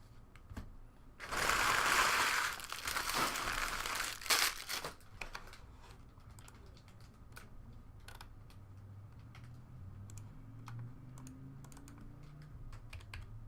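Card packaging torn open and crinkled for about four seconds, then light, scattered clicks of trading cards being handled and flipped through one by one.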